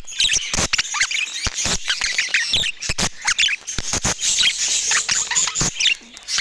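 A group of budgerigars chattering: a dense, continuous run of short warbling chirps and squawks, mixed with many sharp clicks.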